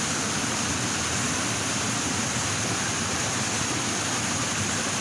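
Steady rushing of flowing water, an even unbroken hiss.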